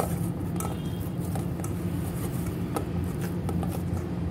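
Hands kneading soft naan dough in a stainless steel bowl: scattered soft squishes and light knocks against the steel, over a steady low hum.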